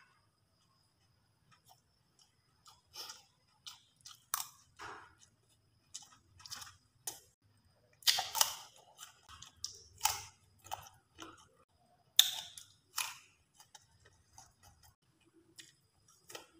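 Close-up eating sounds: chewing and smacking in irregular short bursts, with the loudest crisp crunches about eight seconds in, when a slice of raw cucumber is bitten, and again about four seconds later.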